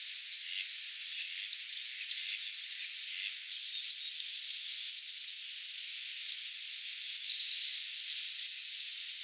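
Steady outdoor background hiss with scattered faint ticks and the low end filtered away, and a brief slightly louder flurry of ticks about seven seconds in.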